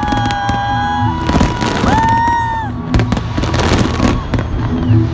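Fireworks going off in quick succession, with dense crackling and pops, and several whistling tones that each rise quickly and then hold for about a second. A steady low hum runs underneath.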